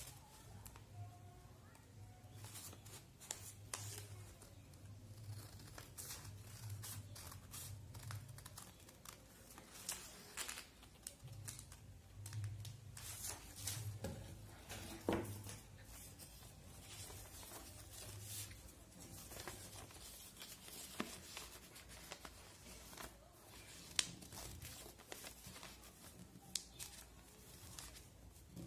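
Scissors snipping through folded paper, then the paper rustling and crinkling as it is handled and pressed flat by hand. It comes as a run of small dry snips and crackles, with a few sharper clicks.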